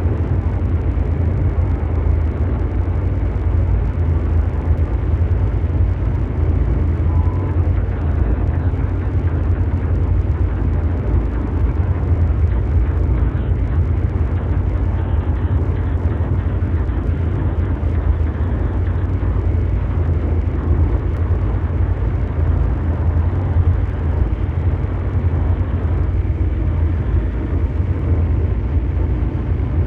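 Ambient mechanical drone: a steady, engine-like rumbling noise with a heavy low hum underneath and a rough hiss above it, unchanging throughout, in the manner of brown noise.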